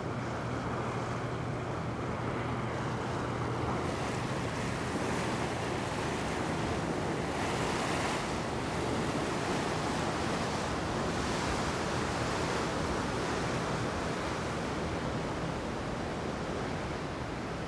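Steady rush of wind and water on a motor yacht under way, with a low engine hum underneath that is clearest in the first few seconds.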